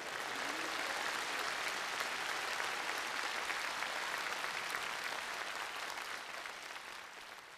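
Studio audience applauding steadily, the clapping dying away near the end.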